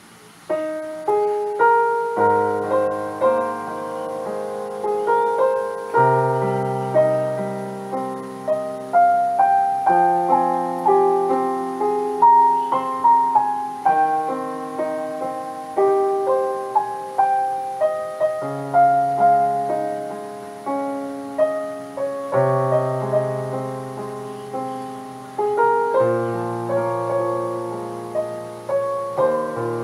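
Solo piano playing a flowing melody over broken chords, with a low bass note struck every few seconds; the playing begins about half a second in.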